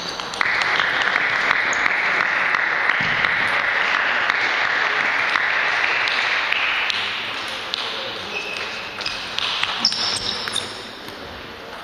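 Table tennis ball clicking sharply off bats and the table during rallies, over a steady rushing noise that fades away after about seven seconds.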